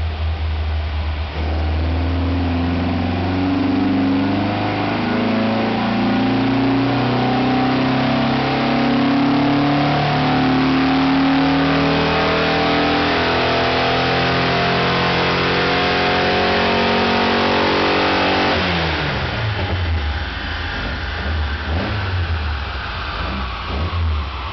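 Volkswagen Type 3's 1915cc air-cooled flat-four engine pulling under load on a chassis dynamometer, its revs climbing steadily for about seventeen seconds. Near the end the throttle closes and the engine winds down quickly as the rollers coast.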